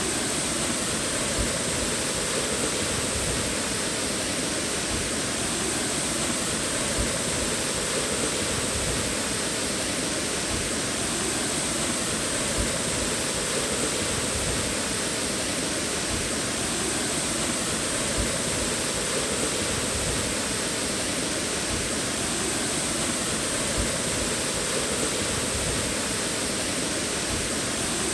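Waterfall: falling water rushing steadily, with no breaks or changes.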